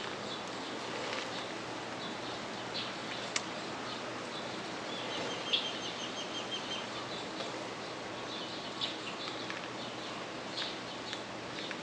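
Small birds chirping, with a short rapid trill about five seconds in, over a steady rush of wind. A single sharp click a little over three seconds in.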